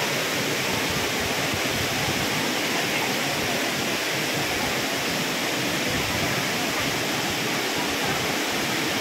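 Steady rushing of a waterfall: a constant roar of falling water with no breaks or changes.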